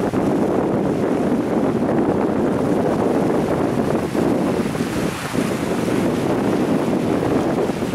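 Wind buffeting the microphone: a loud, steady, rumbling rush.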